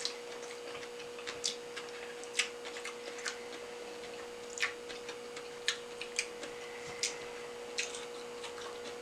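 Wet, irregular clicks and smacks of chewing sushi with the mouth close to the microphone, about a dozen over the stretch, over a faint steady electrical hum.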